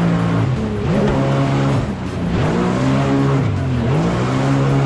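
Jet ski engine revving up and down over and over as the throttle is worked through sharp turns, each rise in pitch followed by a drop, over the rush of water spray.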